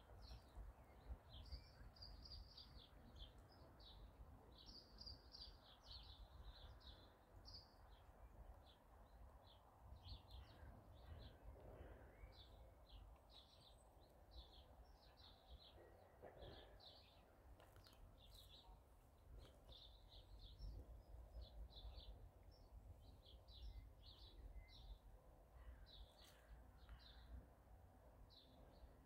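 Faint birds chirping in quick runs of short high notes, over a low rumble.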